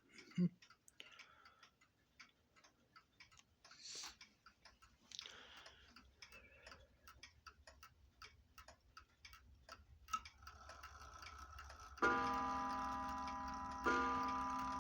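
New Haven tambour No. 50 mantel clock ticking steadily, then starting to strike four o'clock: two ringing strikes about two seconds apart near the end, each ringing on and slowly fading.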